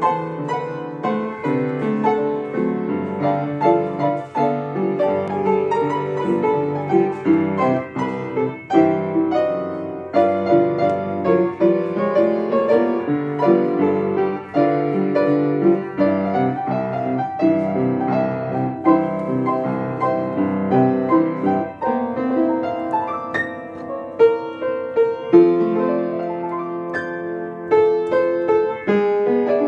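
Upright piano played with both hands: a continuous tune of melody over chords, with notes struck in quick succession.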